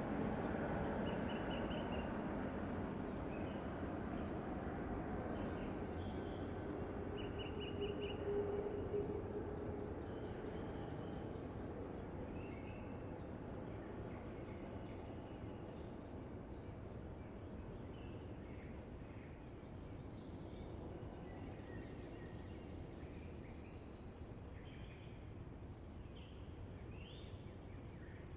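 Woodland ambience: scattered short chirps of small birds over a low background rumble, which is loudest at the start and slowly fades over the first ten seconds or so.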